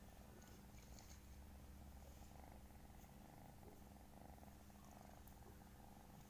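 Kitten purring faintly and steadily while being stroked.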